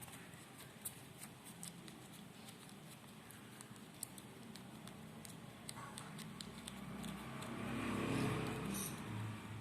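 Purple slime being handled by hand: a run of small sticky clicks and pops, with a louder squishing swell about eight seconds in.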